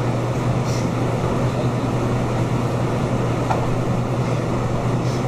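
Steady low hum under an even rushing noise, typical of room ventilation or air-conditioning.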